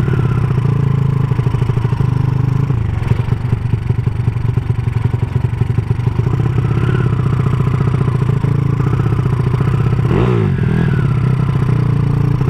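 Engine and exhaust of a Honda Supra motorcycle, bored to 200cc and fitted with a CJDW aftermarket exhaust, running steadily while riding, with a brief dip and rise in pitch about ten seconds in.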